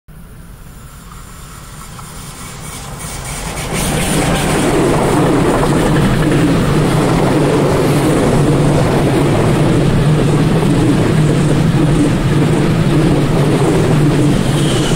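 Freight train of double-deck car-carrier wagons, hauled by an electric locomotive, approaching and passing close by. The rumble grows louder over the first four seconds, then holds steady as the wagons roll past.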